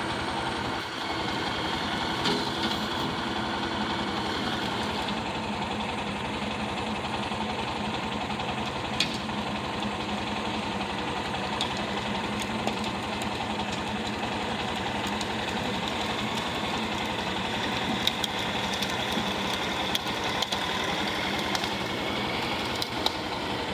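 Tractor engine running steadily under work, with a few faint clicks over it.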